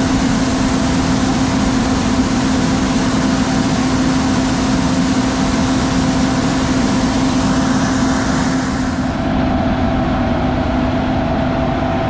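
A heavy vehicle engine running steadily: a constant drone with a hiss over it. The hiss drops away about nine seconds in while the engine keeps running.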